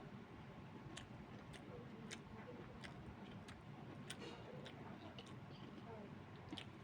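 Quiet eating sounds: soft, sharp clicks coming irregularly about every half second over a low background hum, from a meal of pork, cabbage and rice being eaten.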